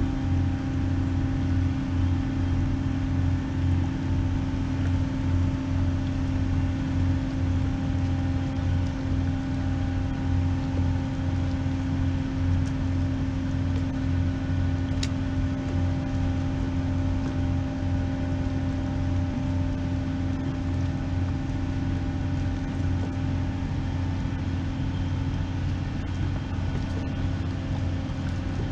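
Steady, unbroken drone of large ship machinery, an engine or generator running, with a constant low hum over a fluttering rumble.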